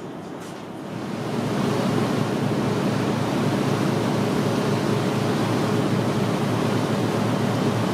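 Ferry at sea heard from the open deck: a steady rush of wind and churning wake water. About a second in it rises sharply out of a quieter, muffled hum heard inside the cabin.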